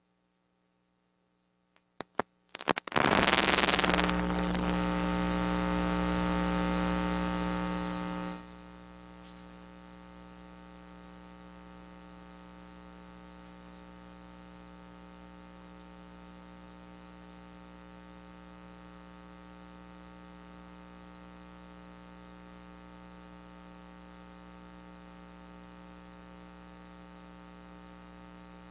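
Electrical mains hum in the sound system: a few crackling clicks and a burst of static, then a loud buzz that drops suddenly about eight seconds in to a lower, steady hum.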